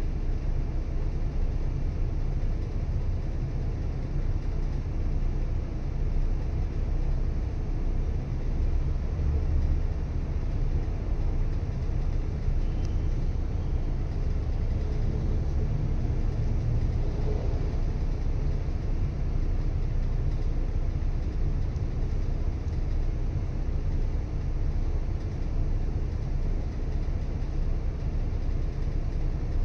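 City bus idling in stopped traffic, heard from the front seat inside the cabin: a steady low engine rumble.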